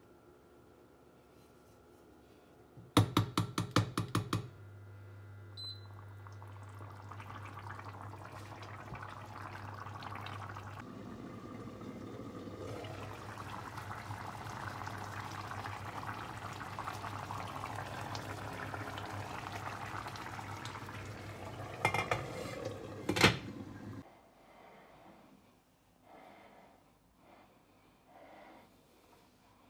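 Tomato stew simmering and bubbling in a frying pan on an induction hob. The bubbling builds up over many seconds and stops abruptly about 24 seconds in. A quick run of loud clicks comes about three seconds in, followed by a low steady hum for several seconds.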